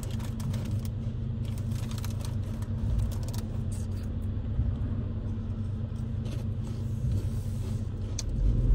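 Steady low hum of a car's engine and cabin, heard from inside the car, with a few light clicks. A louder low rumble swells in near the end.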